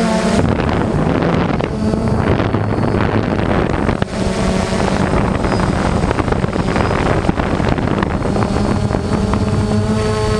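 Quadcopter's electric motors and propellers running with a steady whine, mostly buried under wind buffeting the microphone from about half a second in; the motor tone comes through clearly again near the end.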